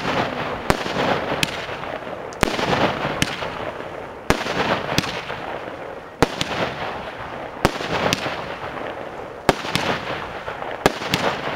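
Firework battery (Amey "Goldpalmfinale") firing gold palm aerial shots: about ten sharp bangs, roughly one a second at an uneven pace, with a continuous hiss between them.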